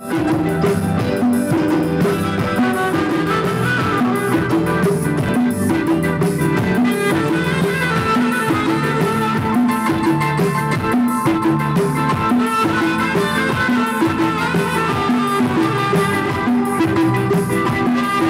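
Amplified live band music: a saxophone carries the melody over a steady beat from drums and percussion, with keyboard.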